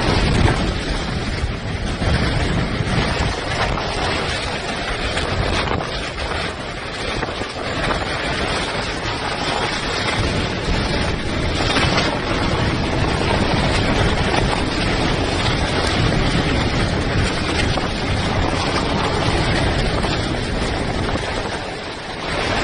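Hurricane wind blowing hard and steadily, buffeting the microphone with a deep rumble under a loud rushing noise.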